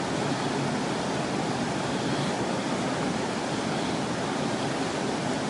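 Steady rush of flowing river water, an even wash that holds the same level without breaks.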